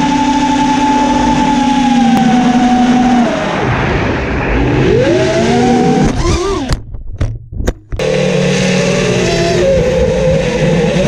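Racing quadcopter's brushless motors and propellers whining, heard through the camera mounted on the quad, over a rush of wind. The pitch slides up and down with the throttle and drops out in a few short gaps about two-thirds of the way in.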